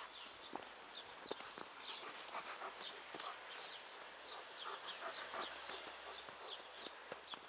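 Small birds chirping over and over in quick high notes, with scattered crunching steps in snow.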